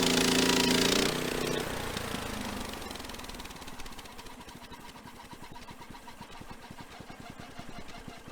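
Band sawmill engine running at full speed with the band blade going, then throttled back about a second in. It winds down over the next two seconds to a steady, evenly pulsing idle.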